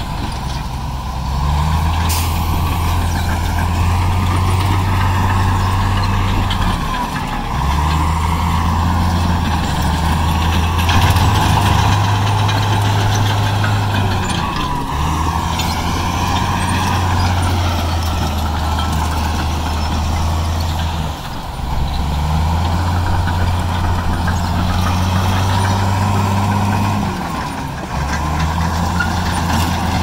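Heavy diesel engine of earthmoving machinery running hard under load. Its note dips and shifts pitch about every seven seconds, as the machine changes between pushing and backing up.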